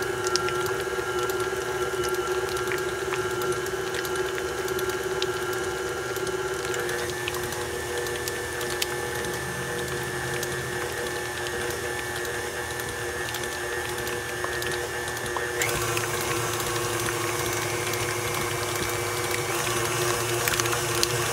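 Tilt-head stand mixer with its paddle beater creaming butter and cream cheese, the motor and gears whining steadily. Its pitch steps up about seven seconds in and shifts again past halfway, as the speed is changed.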